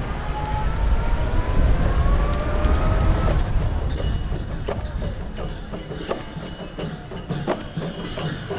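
Low rumble of traffic with a slowly rising engine whine for about the first three seconds, then music comes in: sharp percussion strikes about three a second over a steady high tone.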